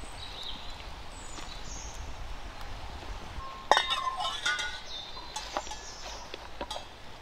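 Metal spatula clinking and scraping against an iron griddle (tawa) as a bajra rotla is lifted off it. A sharp clink comes about three and a half seconds in, followed by several lighter clinks and scrapes.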